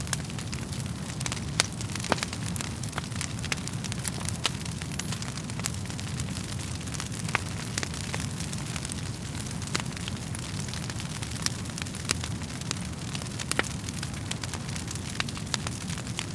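Wood fire burning in a fireplace: a steady low rumble of flames with frequent irregular sharp crackles and pops from the burning logs.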